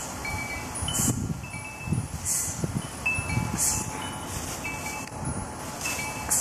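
Chimes ringing, several overlapping tones at different pitches, over the rustle and soft thuds of bare feet stepping and turning in dry fallen leaves.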